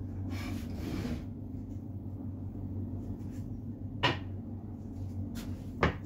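Wooden boards handled on a wooden workbench: a soft sliding scrape near the start, then two sharp wooden knocks nearly two seconds apart as boards are set down, the second near the end. A steady low hum runs underneath.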